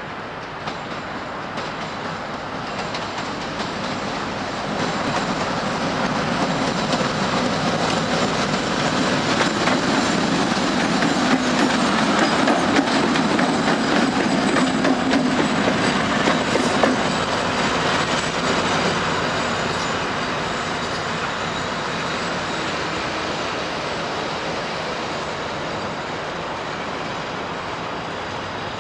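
2M62 two-section diesel locomotive passing close, its two-stroke V12 diesel engines running and its wheels clattering on the rails. The sound swells as it approaches, is loudest a little past halfway, and fades as it pulls away.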